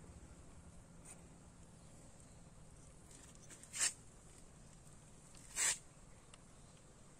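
Quiet background with two brief scraping or rustling sounds, about two seconds apart, from hands and a screwdriver working on a motorcycle turn-signal indicator as it is screwed on.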